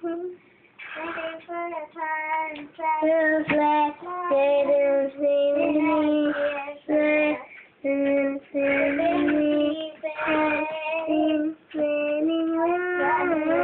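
A child singing a song alone, with no accompaniment, holding long notes in phrases broken by short pauses.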